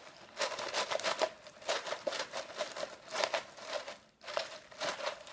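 Expanded clay pebbles (LECA) rattling and grating against each other and a thin plastic cup in a series of short bursts, as the cup is shaken and the plant's roots are worked down into the pebbles.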